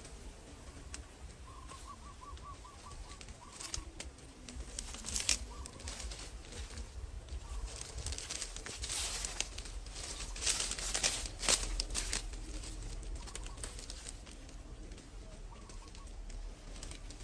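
Leafy branches rustling and shaking in bursts as hands pull at the leaves, loudest around the middle. A bird calls a few times in the background.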